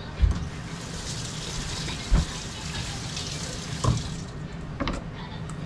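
Kitchen tap running into a stainless steel sink while metal pots are handled, with three dull knocks. The water stops about four seconds in, followed by a few light clinks.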